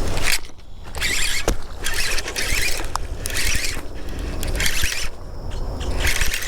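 Fishing reel being cranked in short bursts, about one a second, reeling in a bass.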